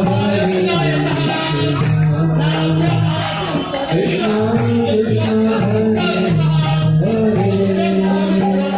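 Devotional music: voices singing a chant in long held notes over a steady jingling of hand percussion.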